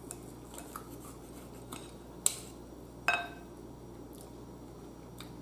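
Metal knife and fork clinking and scraping against a bowl while cutting steak: scattered light clicks, with two louder clinks a little after two seconds and at about three seconds, the second one ringing briefly.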